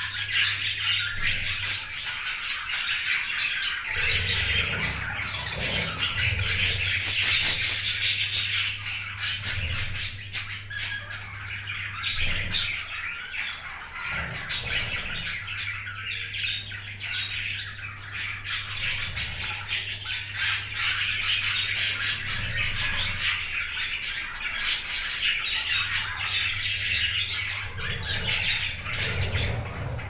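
A flock of budgerigars chattering and squawking nonstop, a dense mix of warbling calls and sharp chirps.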